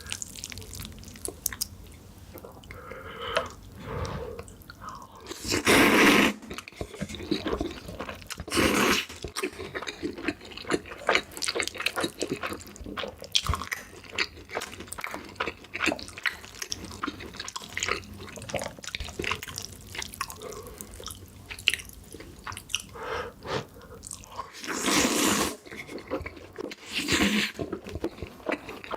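Close-miked eating sounds: chewing with many small wet mouth clicks. Four louder, noisier bites break in, one about six seconds in, one near nine seconds, and two near the end.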